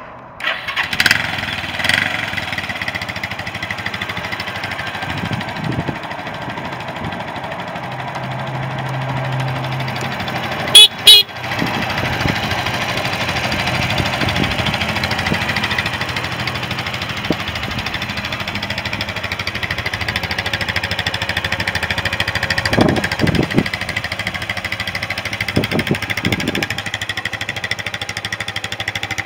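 2009 Suzuki GZ250's single-cylinder four-stroke engine starting and running at idle, with a few brief louder moments. Two sharp, loud knocks come close together about eleven seconds in.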